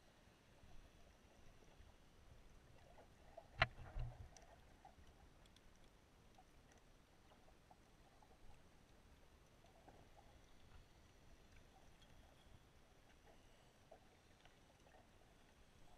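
Near silence: faint muffled underwater noise, with one sharp knock about three and a half seconds in and a low thump just after it.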